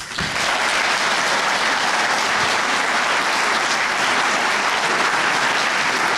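Audience applauding: the clapping breaks out all at once and then holds steady.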